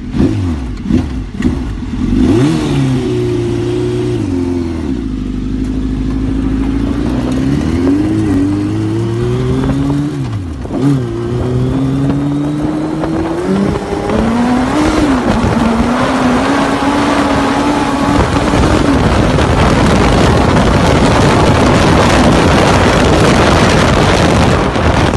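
Off-road rally buggy's engine revving and accelerating, its pitch climbing and dropping with each gear change, after a few quick throttle blips at first. From about two-thirds in, a loud rush of wind and tyre noise on sand builds over the engine.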